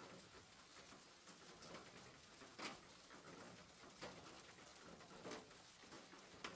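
Near silence: faint room tone with four soft clicks spaced about a second and a quarter apart.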